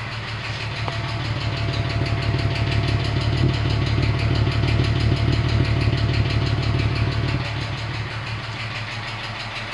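VW Passat 35i VR6 engine idling warm, heard at the tailpipe: the exhaust note grows louder about a second in as the microphone nears the exhaust and drops back near the end. The idle is uneven, the engine shaking, and the owner hears it misfiring now and then at the exhaust.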